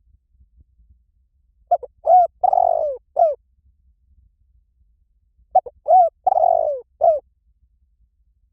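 Spotted dove cooing: two phrases of several notes, each with one longer, drawn-out note in the middle, about four seconds apart.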